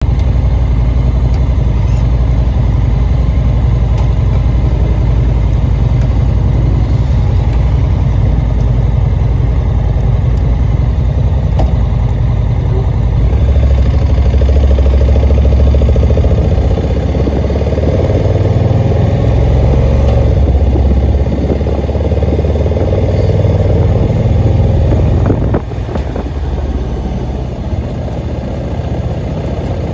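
Vehicle engine and road noise while driving uphill on a mountain road: a loud, steady low rumble that swells around the middle and drops suddenly about 25 seconds in.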